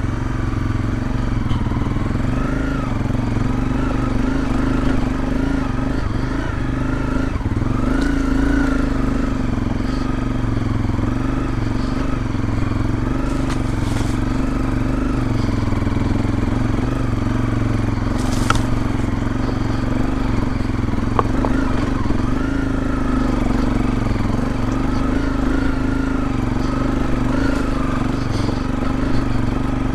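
Dual-sport motorcycle's single-cylinder engine idling steadily, its pitch wavering slightly, with a couple of brief sharp knocks partway through.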